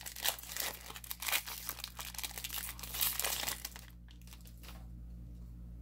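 Foil wrapper of a Magic: The Gathering booster pack being torn open and crinkled in the hands, a dense crackling that stops about four seconds in.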